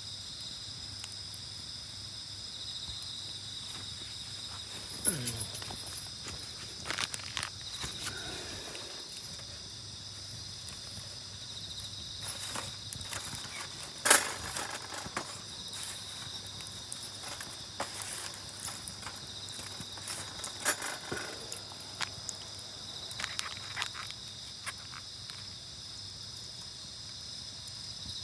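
A steady high chorus of crickets and other insects, with a campfire's wood crackling and popping at irregular moments; the sharpest pop comes about halfway through.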